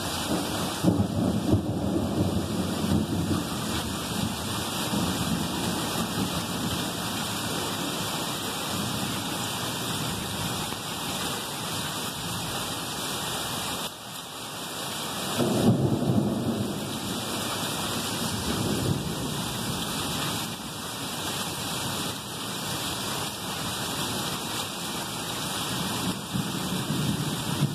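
Heavy thunderstorm rain pouring steadily. Rolls of thunder rumble in about a second in and again a little past halfway, the second one the louder.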